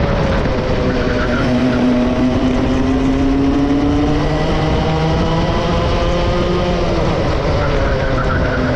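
Two-stroke racing kart engine running at race pace, its pitch falling as it lifts off and climbing again under acceleration, several times over.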